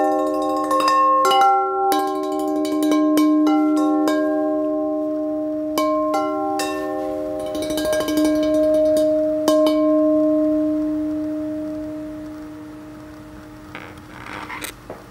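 Large white ceramic salad bowls struck by hand as percussion, each ringing with its own clear pitched tone. Quick strikes at first that thin out and stop about two-thirds of the way through, then the overlapping ringing slowly dies away, with a soft rustle near the end.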